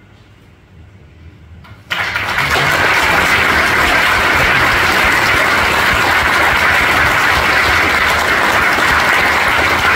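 A crowd breaks into applause about two seconds in, after a quiet hall, and the clapping goes on steadily and loudly.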